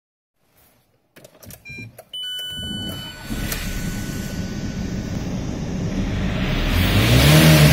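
Ford Galaxy's 1.9 TDI (AUY) four-cylinder turbodiesel starting: a few clicks and short electronic beeps, then it catches about two seconds in and idles steadily, with one brief rev and fall back near the end.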